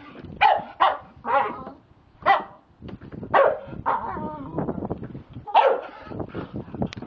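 Staffordshire bull terrier barking repeatedly, sharp single barks coming every half second to a second, about seven in all.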